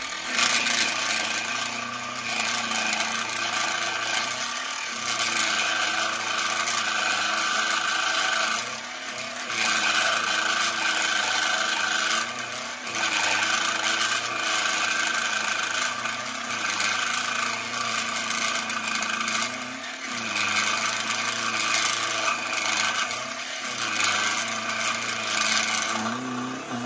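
Proxxon MF70 micro milling machine with a brushless inrunner spindle motor, its 6 mm end mill taking a cut about 2 mm deep in steel: a steady motor hum under a rasping cutting noise that eases briefly every three to four seconds. The cut goes quite easily, with power to spare.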